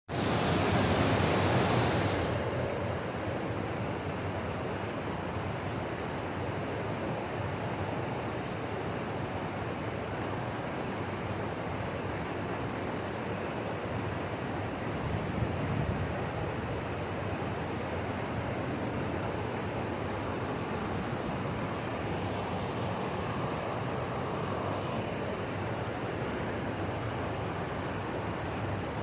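Waterfall rushing with a steady, even roar of falling water, a little louder in the first two seconds.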